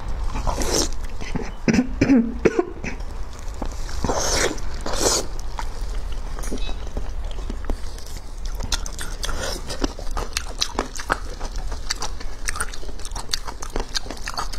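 Close-miked chewing of soft, fatty sliced pork belly, with many wet mouth clicks and lip smacks and a few louder wet sucking sounds near the start and about four seconds in.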